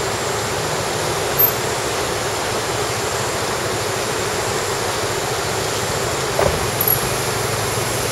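Steady rush of a fast-flowing river, with a few brief knocks about a second and a half in and again near the end.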